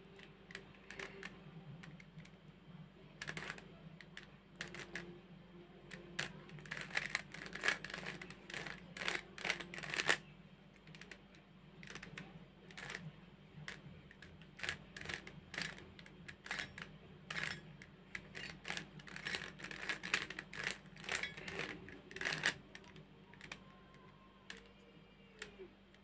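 Plastic 3x3 Rubik's cube being turned by hand: faint, irregular clicking and clacking of its layers, in quick runs with short pauses between them.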